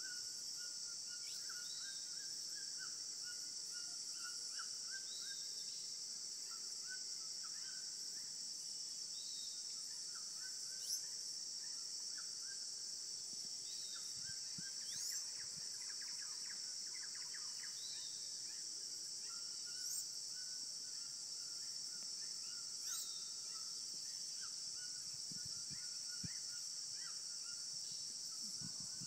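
Rainforest evening chorus: a steady high-pitched insect drone, with birds calling over it. There are runs of short chirps, and every few seconds a quick rising whistle.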